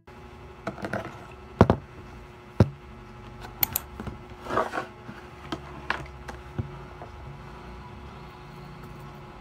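Scattered knocks and clicks of objects being handled and set down on a wooden desk, the sharpest about one and a half and two and a half seconds in, with a brief rustle near the middle. From about seven seconds in only a steady low room hum remains.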